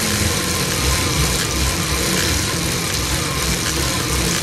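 Pedal-driven car alternator and bicycle drivetrain spinning at about 2,000 rpm, a steady whir with an uneven low rumble underneath, while the alternator charges the battery at 14.8 volts.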